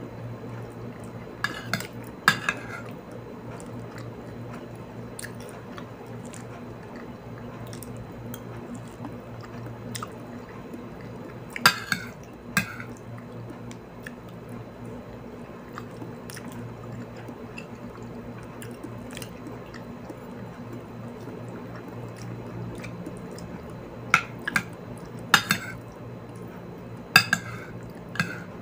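Metal spoon and fork clinking and scraping against a plate, in short sharp clicks now and then: a few at the start, two in the middle and a quick run near the end. A steady low hum runs underneath.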